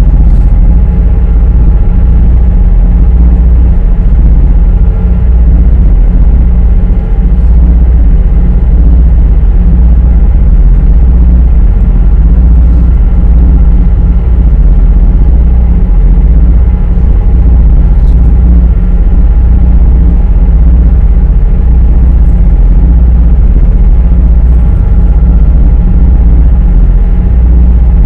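High-speed passenger boat's engines running steadily at cruising speed, heard from inside the cabin as a loud, even low drone with a few steady tones above it.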